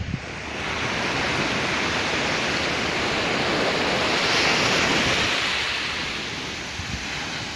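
Sea surf: the rushing hiss of a wave breaking and washing in. It swells over a few seconds, is loudest around four to five seconds in, and dies away near the end.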